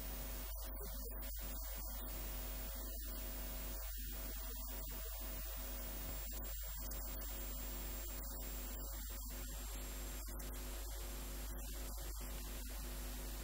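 Steady electrical mains hum with an even hiss over it and a few faint steady tones above the hum.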